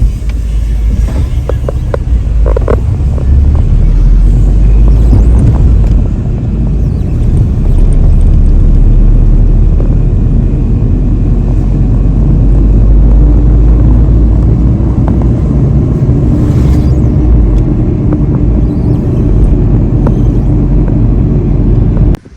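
Car driving on the road, heard from inside: a loud, steady low rumble of engine and road noise, with a few light knocks. It cuts off suddenly near the end.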